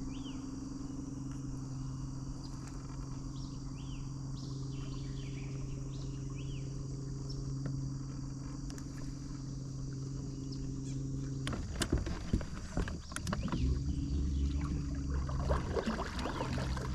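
A boat motor's steady low hum, with short chirping bird calls over it in the first half. About two-thirds through, the hum breaks off under a run of sharp clicks and knocks, then comes back with more low rumble.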